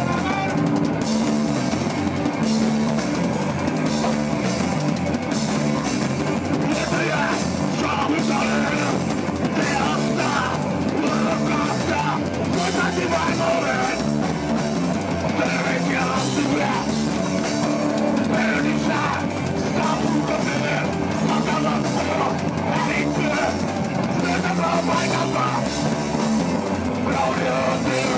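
Hardcore punk band playing live: fast drums with distorted guitar and bass, loud and continuous.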